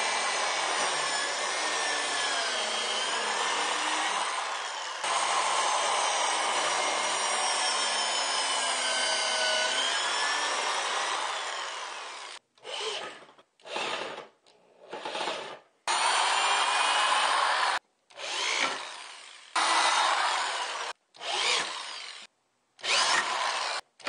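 Corded electric drill boring pilot holes into a pine frame corner, its motor running continuously with the pitch sliding up and down as the speed varies. From about halfway it runs in short start-stop bursts as it drives screws into the frame.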